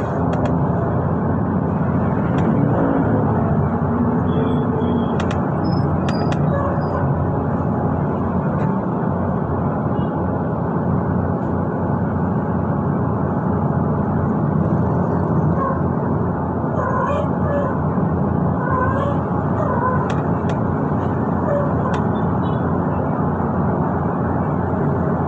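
Transjakarta city bus under way, heard from inside the cabin: steady engine and road noise with no letup, plus a few faint short squeaks or voices about two-thirds of the way through.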